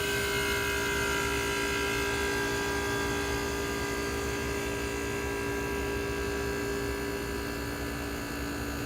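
1967 Sears Coldspot 6,500 BTU window air conditioner running, its pancake compressor humming steadily with the fan blowing on low. The hum is even and smooth, a compressor the owner judges pretty good sounding.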